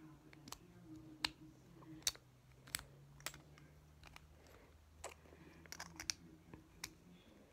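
Beyblade top parts being handled and twisted together by hand: a dozen or so sharp, irregular plastic-and-metal clicks.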